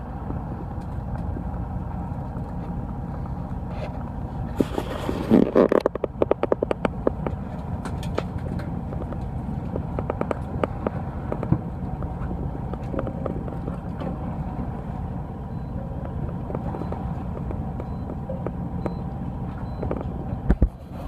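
Fishing boat's engine running steadily, a constant low hum. About five seconds in, a brief rush of noise and a quick run of clicks cut across it.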